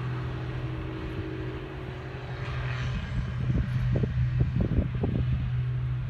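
Challenger self-propelled windrower's diesel engine running steadily as the machine mows, a constant low hum. From about halfway in, irregular low rumbles rise over it.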